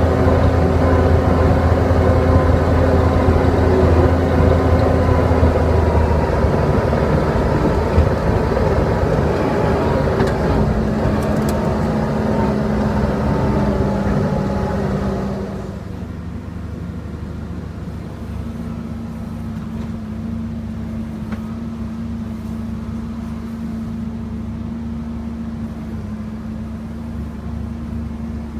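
A large engine runs steadily with a low hum. About halfway through the sound drops suddenly and it carries on quieter.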